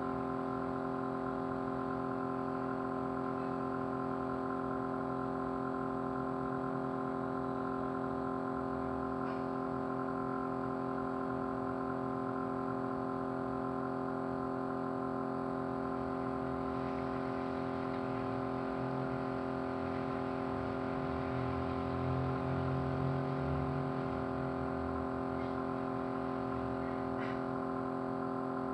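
Small motor running steadily, giving a constant vibrating hum on one unchanging pitch, briefly a little heavier in the low end about two-thirds of the way through.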